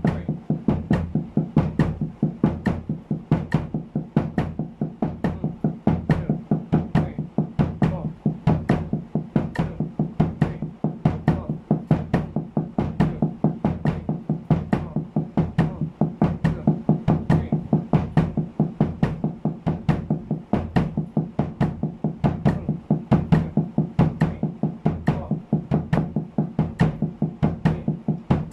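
Drumsticks playing an even sixteenth-note pattern on a towel-muffled snare drum at 70 bpm: double strokes starting with the right hand on the downbeat, with bass-drum kicks on the last two sixteenths of each beat. The strokes run as a fast, unbroken rhythm.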